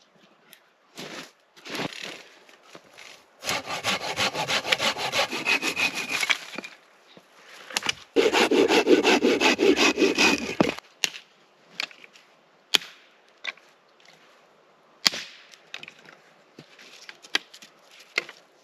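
Hand saw cutting through a wooden branch in two bouts of quick back-and-forth strokes, the second louder, followed by a few scattered snaps and knocks of wood.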